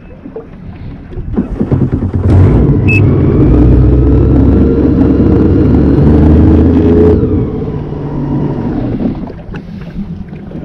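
A Sea-Doo personal watercraft engine revs up sharply about two seconds in, holds a loud, slightly rising run for about five seconds, then drops back to a lower running note. This is the iDF debris-free system being triggered over weeds to reverse the jet-pump impeller and flush the intake. A short electronic beep sounds as the revs climb.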